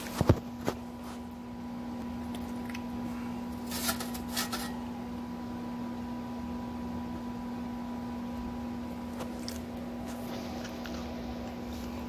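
Steady low hum of a running kitchen appliance. A few sharp clicks come in the first second, and brief rustling handling noise about four seconds in.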